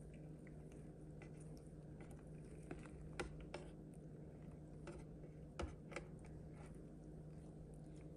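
Faint, scattered light clicks and taps of fingers and a soft rice-paper wrapper against a plastic tray as a spring roll is rolled up, over a low steady hum.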